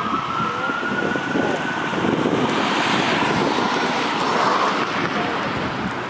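Wail siren of a 2020 Pierce Arrow XT fire engine, a slow rising tone that fades away within the first two seconds as the engine moves off. A steady rushing noise then takes over.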